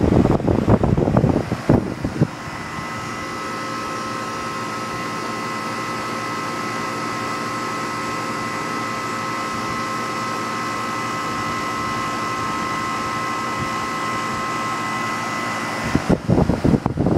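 1995 Miller 3.5-ton central air conditioner, with its General Electric fan motor, running with a steady hum and a constant high whine. Gusty rumbling of wind on the microphone covers it for about the first two seconds and again near the end.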